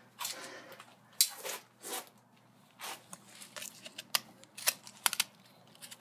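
A knife cutting and scraping into a small loudspeaker's cone while the speaker is handled: short scraping rustles and several sharp clicks.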